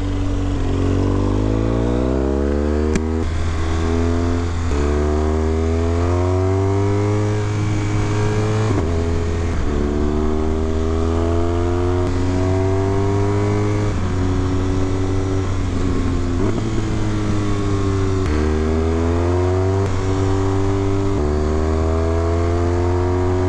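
Motorcycle engine heard from the rider's seat, accelerating up through the gears: its pitch climbs and drops back at each of about three shifts in the first nine seconds. It then holds and eases off, falling in pitch mid-way, and pulls hard again for another shift near the end. Wind rushes steadily over the microphone throughout.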